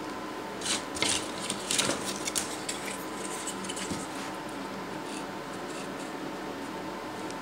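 Thin wooden reed-block parts scraping and knocking against a plywood template as they are fitted by hand: a cluster of short scrapes and clicks in the first few seconds, over a steady background hum.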